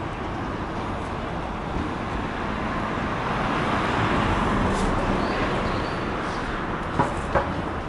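Road traffic going by, a passing vehicle swelling and fading midway, with two sharp knocks close together near the end.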